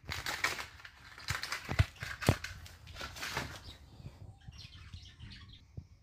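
A cat pawing and nosing at a woven wicker floor cushion on a wooden floor: scratchy rustling of the weave, with two sharp knocks about two seconds in, then quieter rustles.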